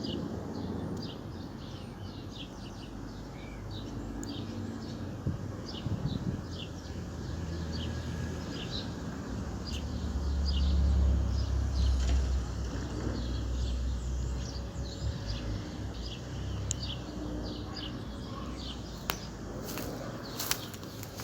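Small birds chirping repeatedly over a low outdoor rumble that swells about halfway through, with a few sharp clicks near the end.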